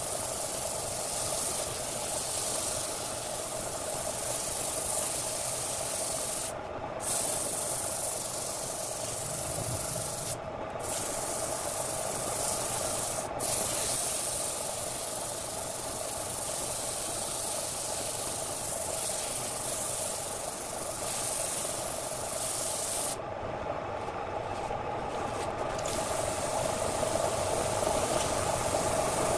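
Sandpaper held by hand against a redwood vase blank spinning on a wood lathe, giving a steady rubbing hiss over the lathe motor's steady hum. The hiss cuts out briefly three times and thins for a few seconds near the end, as the paper is lifted or shifted.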